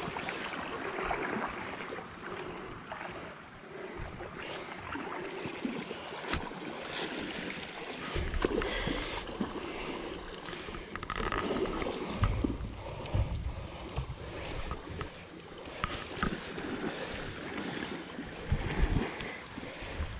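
Creek water running and sloshing, with wind buffeting the microphone in low rumbles and several short, sharp splashes.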